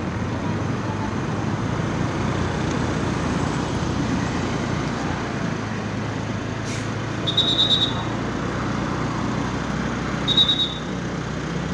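Steady rumble of road traffic and a running vehicle engine. Two brief high-pitched tones sound over it, one about two-thirds of the way in and one near the end.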